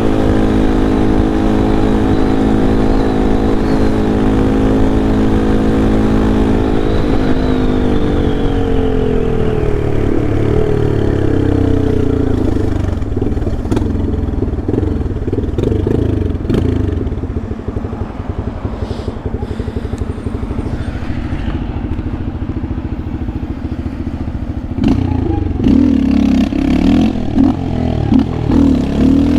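Yamaha Lander 250's single-cylinder four-stroke engine running at steady revs under way, then falling in pitch as the bike slows and settles to low, quieter revs. Near the end it picks up again, revving harder as the bike accelerates.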